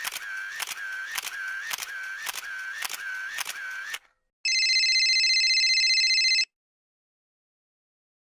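A rapid run of camera-shutter clicks, about three a second, that stops about four seconds in. After a short gap comes an electronic telephone ring, a trilling tone lasting about two seconds.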